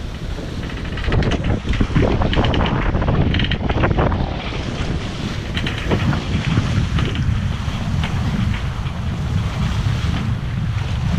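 Wind buffeting the microphone on a sailing catamaran under way, with the rush and splash of waves along the hulls. It grows louder about a second in and stays steady.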